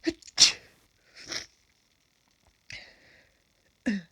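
A person sneezes about half a second in, then sniffs twice, quieter, and makes a short voiced catch of breath near the end: allergic sneezing set off by sniffing grass pollen.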